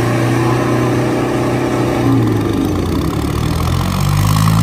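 Diesel tractor engines, a Ford 3600 three-cylinder and a Sonalika 60, running hard under heavy load as they pull against each other in a tug-of-war, blowing black smoke. The engine note is steady and shifts slightly about halfway through.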